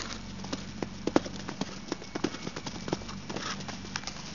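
Hoofbeats of a horse cantering on sand footing: a run of short, dull thuds.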